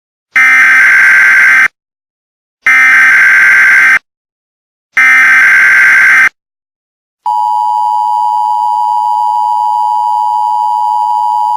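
Emergency Alert System tones: three loud, identical bursts of buzzy digital header code (SAME data), each about a second and a half long with a second's gap between them, then the steady two-tone EAS attention signal starting a little past halfway and holding. The header bursts are the loudest part.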